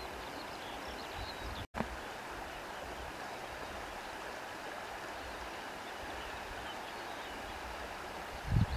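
Wind blowing through grass: a steady rustling hiss, with low gusty rumbles of wind on the microphone, the strongest near the end. The sound cuts out for an instant about two seconds in.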